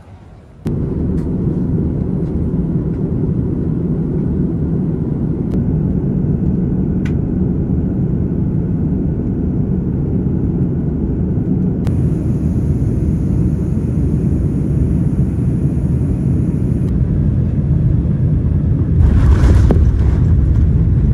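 Steady, loud low rumble of a vehicle in motion. It starts abruptly just under a second in, holds without a break and grows a little louder near the end.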